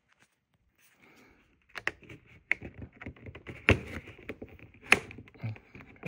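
Plastic pry cards working along the seam of an LG UltraFine 5K monitor's back cover: scraping with a run of sharp, irregular clicks as the cover's plastic hooks start to unhook. Quiet at first, with the clicks starting after about a second and a half.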